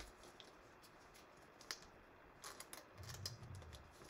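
Near silence with scattered faint clicks and taps of trading cards and a card pack being handled in gloved hands, a little busier about two and a half to three and a half seconds in.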